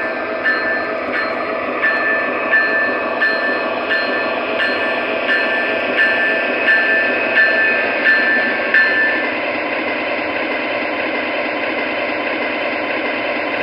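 MTH model locomotive's onboard sound system playing a steady locomotive running rumble over the noise of the model train on its track, with the locomotive bell ringing evenly about every 0.7 s until it stops about nine seconds in.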